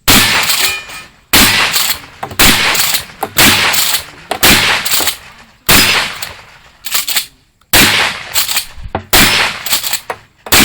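Shotgun shots fired in quick succession on a timed stage, about one a second, around ten in all, each with a trailing tail.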